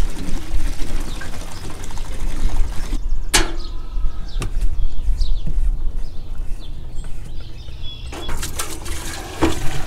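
Tractor transmission-hydraulic fluid pouring from a plastic pail into a metal funnel for the first few seconds. After that come a few sharp clicks and knocks as the pail's cap is handled.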